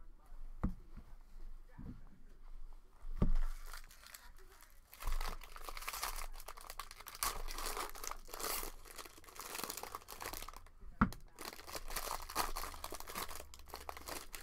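Foil wrapper of a trading-card pack being torn open and crinkled by hand. A few knocks come in the first few seconds, then steady crinkling from about five seconds in, broken briefly by a knock near eleven seconds.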